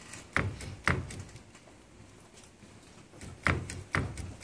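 The motor gearbox of a hydraulic Besam automatic swing door operator knocking in its housing as it is shaken by hand, loose because its rubber mounting supports have perished. Sharp knocks come about half a second apart, with a pause of about two seconds in the middle.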